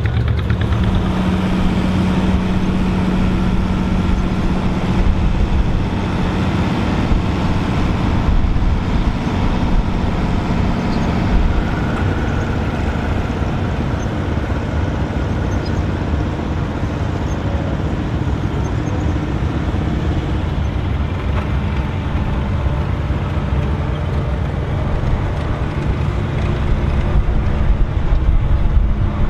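Vintage farm tractor engines running at low speed as tractors drive past one after another. One steady engine note stands out for the first several seconds, then gives way to others.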